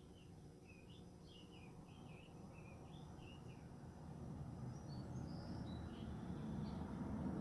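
Songbird singing a quick run of short warbling chirps, then a few higher chirps about five seconds in, over a low background rumble that grows louder near the end.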